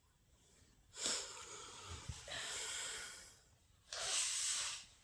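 A person blowing their nose: three long blows, each about a second.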